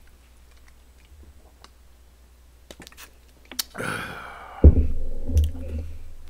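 Soft swallowing clicks while gulping cola from a plastic bottle, then a loud breathy sigh, then the bottle thumped down on the table with a sharp low knock and a second thump.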